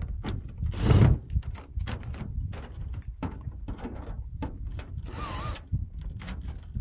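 Irregular knocks and clatter from handling a loose roof panel, with a loud thump about a second in, over a steady rumble of wind on the microphone.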